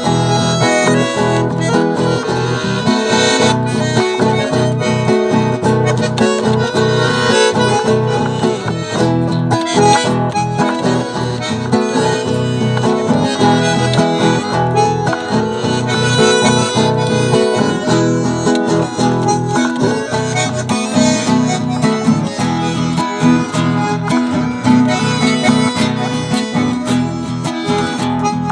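Acoustic guitar and a gaita, a free-reed instrument, playing an instrumental tune together: the guitar's plucked and strummed rhythm under a held reed melody.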